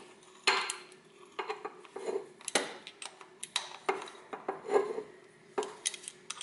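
Metal hand tools clinking and knocking irregularly, about a dozen sharp clanks, while the timing belt tensioner's central bolt on a Toyota Corolla engine is locked down.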